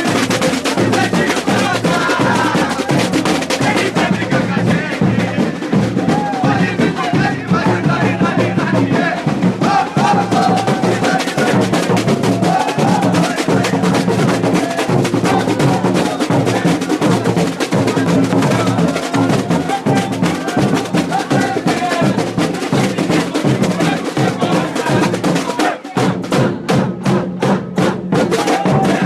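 Carnival bateria, a street percussion band of drums, playing a fast, dense, steady groove. About 26 seconds in, the band plays a short break of separate accented strokes before the full rhythm comes back.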